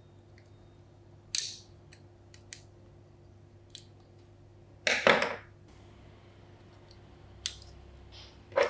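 Scattered sharp clicks and knocks of hard parts being handled on a workbench during a tool restoration, the loudest a short clatter about five seconds in and another knock just before the end.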